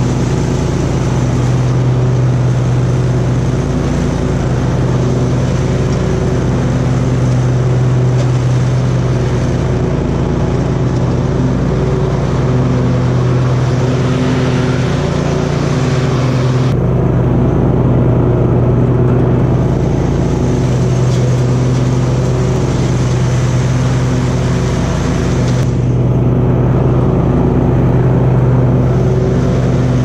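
Hustler Raptor SD zero-turn mower's engine running steadily while mowing, a constant loud drone with a strong low hum, heard from the operator's seat. The sound shifts abruptly about halfway through and again near the end.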